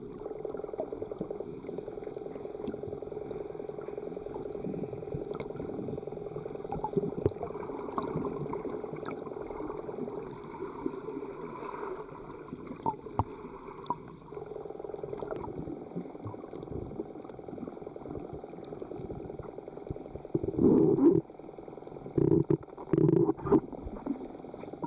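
Muffled underwater sound picked up by a camera under the sea: a steady water hiss with scattered faint clicks. Near the end come several short, louder gurgling bursts of bubbles.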